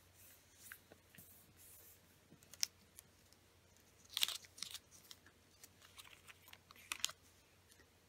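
A sheet of origami paper crinkling and rustling as it is folded and creased by hand, in short crisp crackles, loudest about four seconds in and again near the end.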